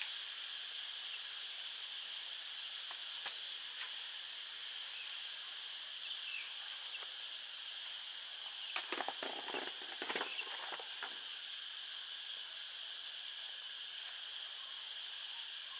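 Steady high-pitched insect chorus, with a brief burst of rattling and rustling about nine to eleven seconds in.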